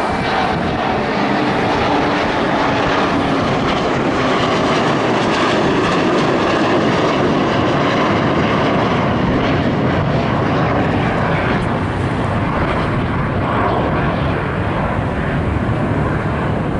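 A McDonnell Douglas twinjet airliner with rear-mounted engines climbing away overhead after takeoff. Its jet engines make a loud, steady rushing noise.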